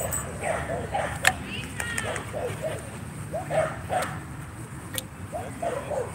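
Dogs yipping and whimpering: short, high, pitched cries again and again, with a couple of sharp clicks.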